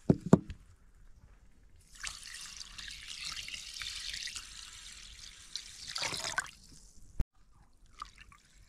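Two dull thumps at the start, then water poured from a jug into a glass bowl of rice for about four seconds, ending in a short splash. Near the end, faint swishing as a hand works the rice in the water to wash it.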